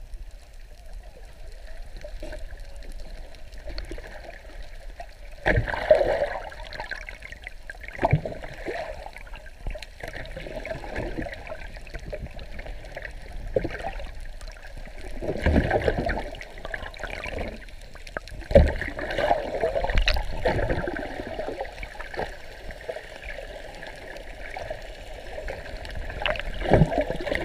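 Water sloshing and gurgling around a GoPro camera held underwater by a snorkeler, swelling unevenly, with a few sharp knocks against the camera.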